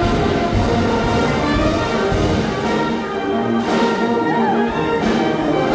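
Music with brass instruments playing sustained chords.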